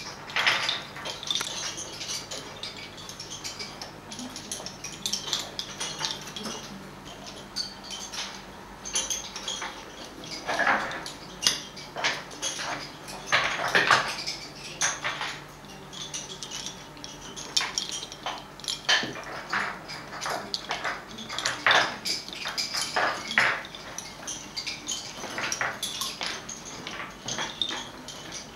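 Wooden lace bobbins clicking and clattering against one another as several lacemakers work bobbin lace on their pillows: an irregular patter of light clicks with louder clusters every few seconds.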